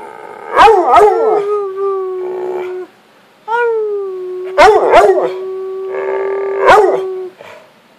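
A pet dog howling in two long, steady howls, the first about three seconds long and the second nearly four, with short sharp yips breaking in over them. This is the dog "talking back" when prompted.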